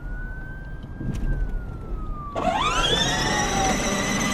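Electronic police-style siren: a thin wail rising then slowly falling, joined about two seconds in by a louder, harsher siren tone that sweeps up sharply and then holds, over a low rumble.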